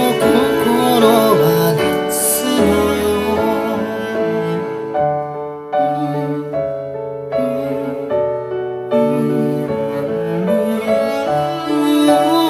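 Instrumental passage of a Japanese pop song, with bowed strings and piano, played through B&W PM1 bookshelf speakers driven by a Denon PMA-1500RE amplifier. The speakers' bass-reflex ports are half-stopped with sponge and the bass tone control is turned down. The sound is heard from the room through a microphone.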